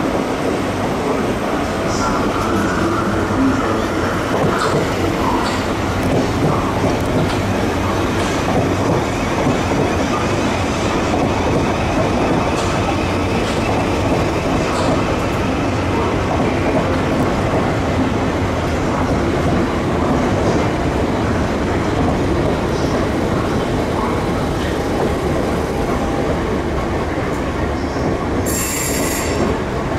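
A train running along the track through the station: a steady loud rumble of wheels on rails. Near the end come several short bursts of high-pitched squealing.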